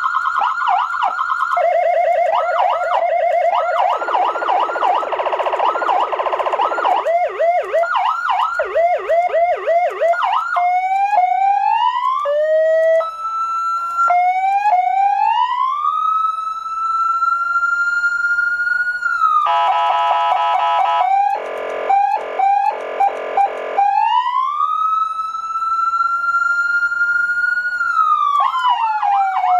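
Electronic siren amplifier driving a siren speaker, stepping through its tones. It starts with fast warbling and yelping patterns, then rising wails. A short blaring horn tone and choppy horn pulses come about two-thirds of the way in. A long wail rises, holds and falls near the end.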